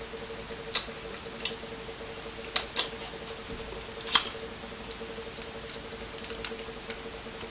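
Close-up eating sounds of a seafood boil: about a dozen scattered sharp clicks and small wet smacks from shell and mouth, over a steady faint hum.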